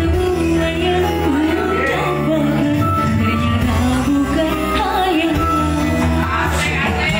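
Live amplified performance: a female singer sings a melody through a microphone over a small band with kendang drum and steady low bass notes.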